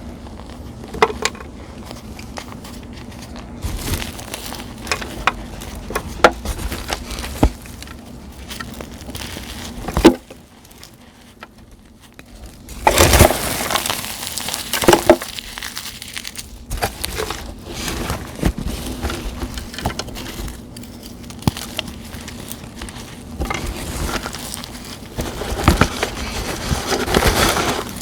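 Dried gym chalk blocks set with glitter paste, dried leaves and dried flowers being crushed by hand: sharp cracks and crumbling crunches, with a dense stretch of crumbling about thirteen seconds in and another near the end.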